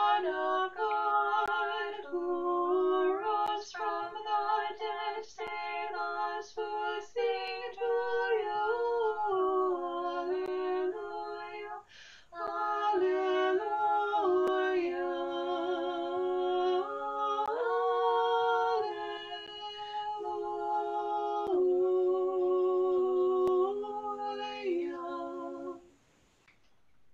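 Two women's voices singing an unaccompanied Orthodox liturgical response in harmony, in held, stepwise notes, heard through a video call's narrow audio. The singing stops about a second before the end.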